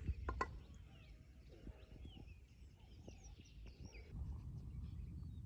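Faint birds chirping and whistling in many short calls over a low steady rumble, with two sharp clicks about half a second in.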